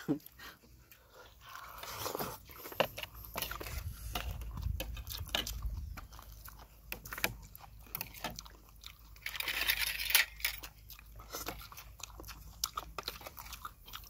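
Close-up eating sounds: chewing and crunching food, with short clicks of spoons against plates.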